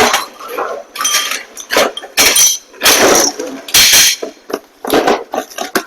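Loose shoe-rack parts clinking and rattling against each other as they are handled and pulled from the package, in a series of short irregular bursts.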